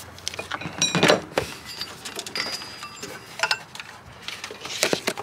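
A half-inch breaker bar levering the engine's belt tensioner while the serpentine belt is slipped off the pulleys: scattered metallic clicks and knocks, with a louder clatter about a second in.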